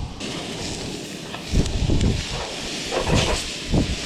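Steady hiss from cooking on a camp stove that starts abruptly just after the beginning. A few short low thumps come through under it.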